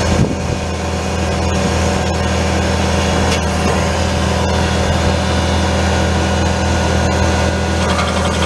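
Bobcat T630 compact track loader's diesel engine running steadily, powering an SG60 stump grinder attachment, with scattered clicks over the steady engine sound.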